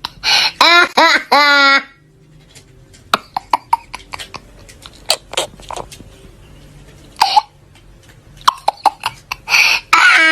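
A person's voice in short, loud, pitched outbursts, speech or laughter, over the first two seconds and again near the end. In between is a quieter stretch of low room hum with scattered short clicks and one brief vocal burst about seven seconds in.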